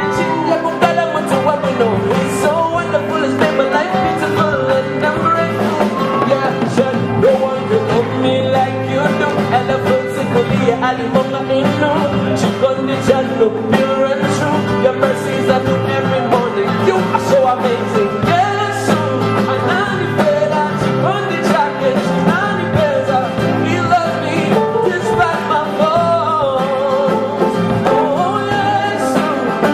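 Male lead vocalist singing a gospel worship song live with band accompaniment, his voice moving over a steady held note throughout.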